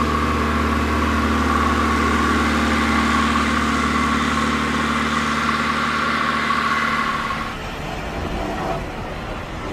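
A vehicle engine running steadily at an even pitch, changing to a rougher, uneven sound about three-quarters of the way through.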